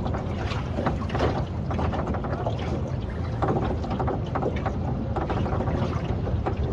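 Fishing boat's motor running steadily, a low rumble under irregular sloshing and splashing of water against the hull.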